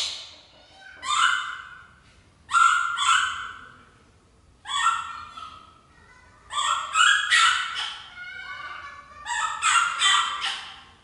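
Baby monkey giving short, high, harsh calls over and over, in clusters of one to four calls, every second or two.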